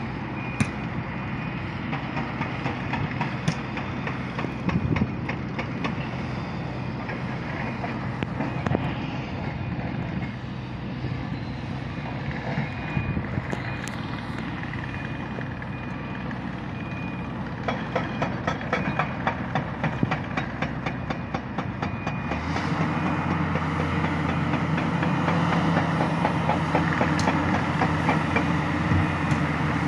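Tata Hitachi Zaxis 650 excavator's diesel engine running steadily as it digs and loads, with a repeating high alarm beep in the first half. About 22 seconds in, the engine note gets louder and deeper as the machine works under load.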